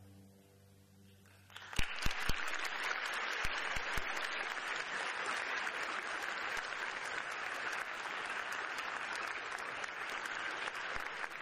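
The last notes of the music die away into a brief hush, then the audience breaks into applause a little under two seconds in, with a few sharp claps at the start, and keeps applauding steadily.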